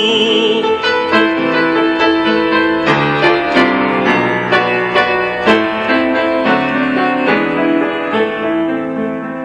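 Instrumental interlude played on a keyboard, piano-like notes and chords at a moderate pace, between sung verses of a song.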